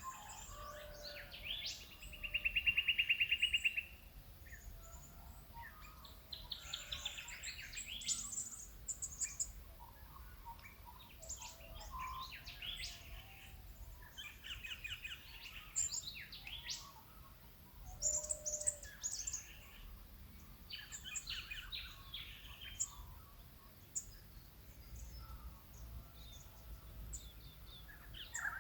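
Early-morning chorus of several wild birds in Australian bush, with many overlapping chirps and calls. The loudest is a fast, even trill lasting about two seconds, a couple of seconds in.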